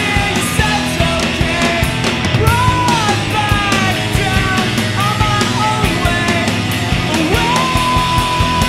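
Studio recording of a punk rock band playing: drums, guitars and a sung vocal line, with a held note near the end.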